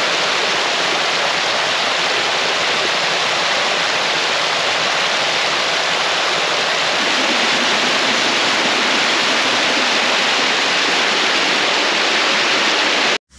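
Small waterfall cascading over mossy rock into a pool: a steady, loud rush of falling water, a little louder from about halfway, cut off abruptly just before the end.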